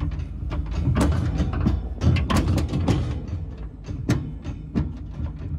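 Farm loader's engine running steadily, with its loaded steel bucket knocking and rattling over and over as it drives over rough ground.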